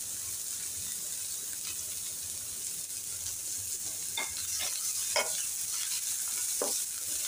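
Chopped onion and garlic sizzling in a little hot oil in a frying pan, with a wooden spatula stirring and scraping through it in a few short strokes from about four seconds in.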